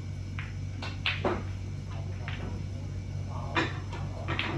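Snooker balls clicking, several short sharp knocks a second or so apart over a steady low hum.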